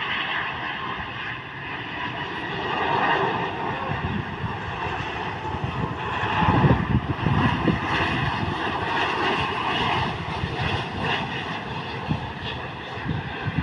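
Airbus A330-300 jet airliner's engines on its landing, a steady jet roar with a whining tone over it, getting louder about halfway through.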